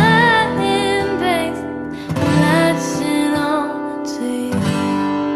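Slow, tender ballad: a sung melody over sustained chords.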